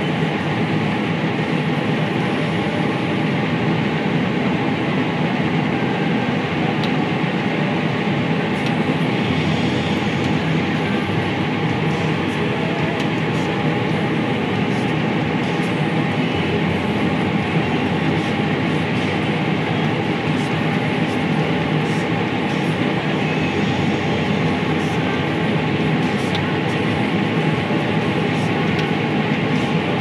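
Combine harvester running steadily under load while harvesting corn, a continuous mechanical drone heard from inside the cab.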